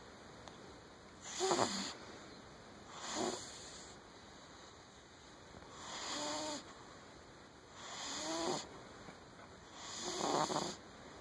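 A sleeping cat snoring: five snores about two seconds apart, some with a buzzing tone.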